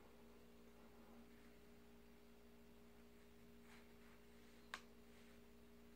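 Near silence: faint steady electrical hum of room tone, with one small sharp click a little before the end.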